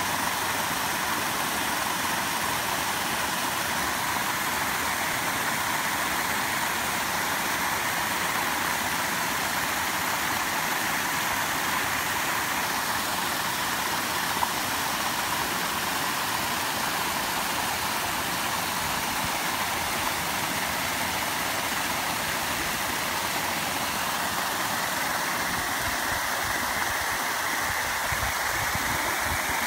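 Long-arm paddlewheel aerator running: its ten raised impellers, turned at about 120 rpm by a 3 hp electric motor through a worm-gear reducer, churn and splash the pond water in a steady rush.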